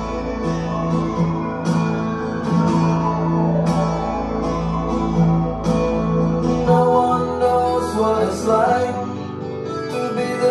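A song with guitar and a steady beat, played loud through large homemade plywood-cabinet speakers driven by two Pioneer SX-D7000 stereo receivers. The deepest bass drops out about two-thirds of the way through.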